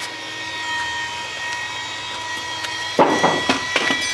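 A steady mechanical whine with a faint hum under it. About three seconds in comes a cluster of sharp knocks and bumps as the camera is picked up and handled.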